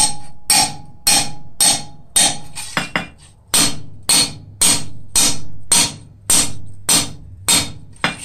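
Three-pound cross-peen hammer striking the edge of a cold steel cross blank on an anvil, about two blows a second, each with a brief metallic ring. This is cold texturing: the rounded peen scallops the border of the blank.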